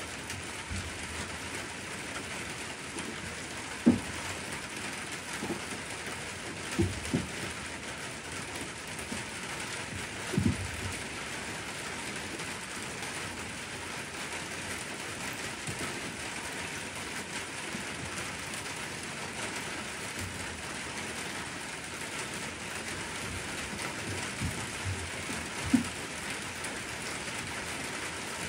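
Steady hiss of rain, with a few short low thumps scattered through it, the loudest about four seconds in and again near the end.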